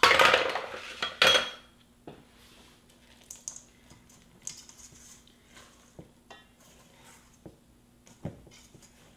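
A loud clatter of kitchen utensils in the first second and a half, then a spatula stirring chocolate chips into stiff cookie dough in a stainless steel mixing bowl, with scattered scrapes and knocks against the bowl.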